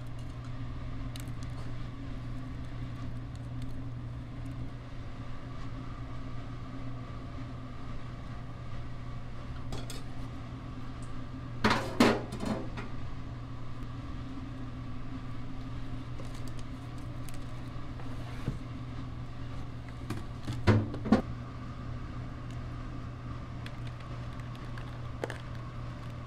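Steady low hum of commercial burger-kitchen equipment, with a short burst of dish and utensil clatter about halfway through and another a few seconds later.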